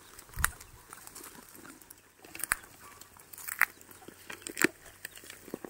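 A carabao tearing at and chewing grass while standing hitched to the plow: irregular soft snaps and rustles a second or so apart.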